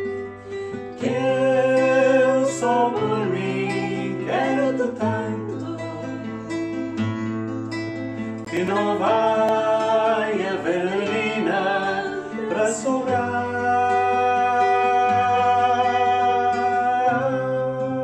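Background music: plucked acoustic guitar over held bass notes, with a wavering lead melody line.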